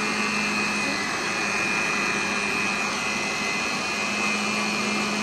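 Electric stand mixer running steadily, beating egg yolks into creamed butter and sugar for cake batter: an even motor hum with a constant high whine.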